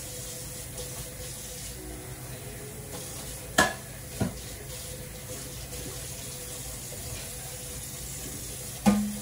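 Dishes being washed by hand at a stainless-steel sink with the tap running. Two sharp metal clanks about half a second apart come near the middle, and a louder clank of a metal pot against the sink near the end rings briefly.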